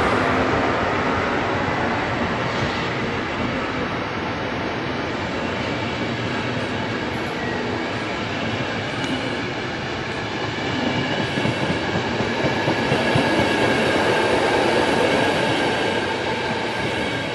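Trenitalia InterCity passenger coaches rolling past, with a steady rumble and clatter of wheels on the rails. It swells a little about two-thirds of the way through, then fades as the last coach goes by near the end.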